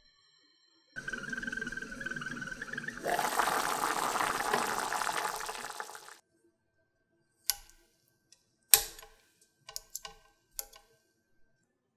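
Potatoes and onion boiling in a saucepan of water: a steady bubbling hiss that grows louder about three seconds in and cuts off suddenly about six seconds in. Then a few light clinks of a metal spoon and fork against the pot.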